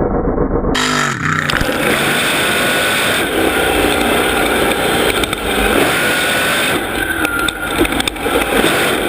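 Mega truck's big engine running loud and revving, its pitch rising and falling.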